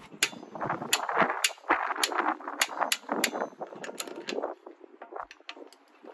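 Torque wrench and socket being worked on car wheel bolts: sharp metallic clicks and clinks, roughly two a second, over the rustle of handling as the bolts are tightened and the socket is moved between bolts.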